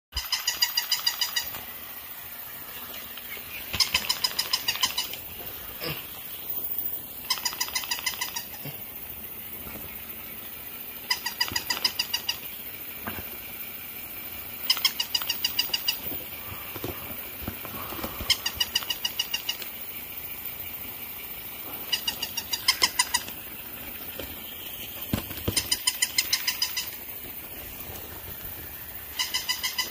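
Electronic sound chip of a battery-powered orange plush toy dog repeating the same high-pitched trilling call. Each call lasts about a second and comes again every three to four seconds.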